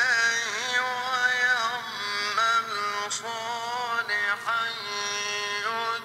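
A solo voice chanting melodically, holding long notes that waver and bend, with short breaks between phrases.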